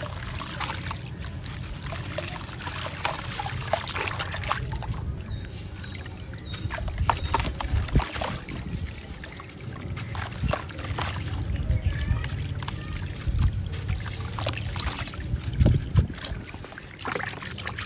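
Gritty sand-cement chunks crunching and crumbling in the hands, with irregular crackles and grit pattering and splashing into a tub of water.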